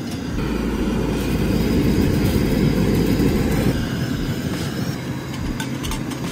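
Portable gas stove's burner lit under a pressure cooker, the flame giving a steady low rushing rumble that swells a little in the middle and eases slightly near the end.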